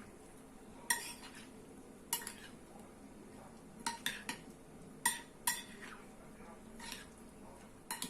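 A utensil clinking against a plate as a salad is stirred: about nine separate ringing clinks at uneven intervals, a few coming in quick succession around the middle.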